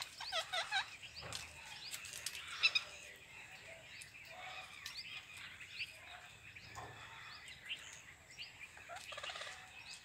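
Rose-ringed parakeets calling: a quick run of chattering calls at the start, a louder call about two and a half seconds in, then faint scattered chirps.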